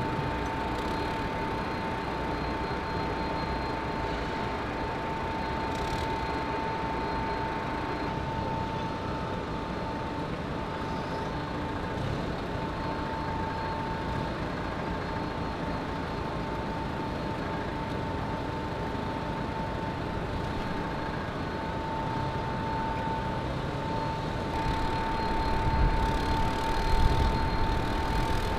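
Heavy equipment running at a cargo pier, forklift and mobile crane engines, as a steady machinery hum with a constant high whine over it. The low rumble grows louder over the last few seconds.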